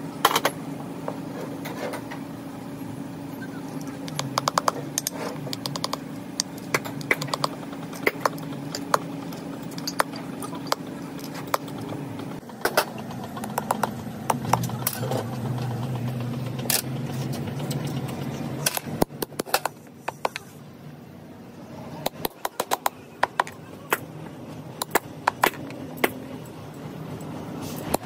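Small hammer tapping a punch through cow leather to cut out a hydraulic jack seal: runs of quick, sharp taps with short pauses between, over a steady low hum.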